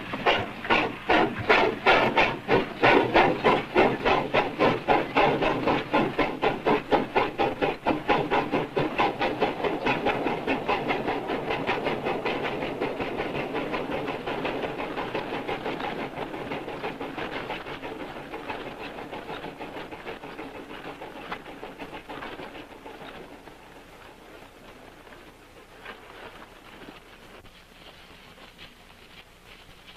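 Steam locomotive chuffing in a steady rhythm of about three puffs a second as it pulls away, fading off into the distance over some twenty seconds.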